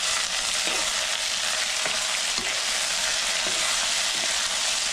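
Diced potatoes and onion frying in sunflower oil in a frying pan, a steady sizzle, with a metal ladle stirring and scraping through them now and then.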